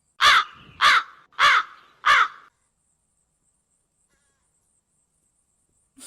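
A crow cawing four times in quick succession, about one call every 0.6 s, then falling silent.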